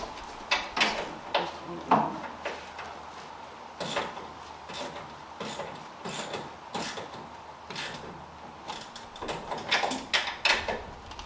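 Hand tools clicking and clanking on the car's suspension bolts: irregular metallic clicks and knocks, loudest about two seconds in and bunched together again near the end.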